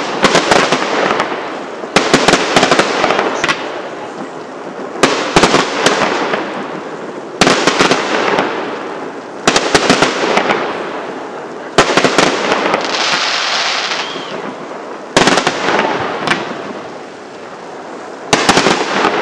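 Aerial firework shells bursting one after another, a sharp bang about every two to three seconds, each followed by a dense crackling and rumbling tail that dies away. Around the middle a hissing crackle sits between the bursts.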